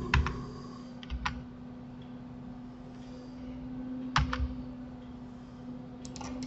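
Computer keyboard keys clicking in four short bursts of two or three presses each, over a steady low hum.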